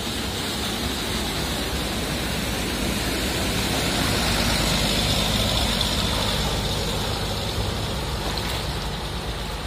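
Diesel coach bus driving through knee-deep floodwater: a steady engine rumble under the rush and splash of water pushed aside by its wheels. It grows louder toward the middle as the bus passes close, then eases off.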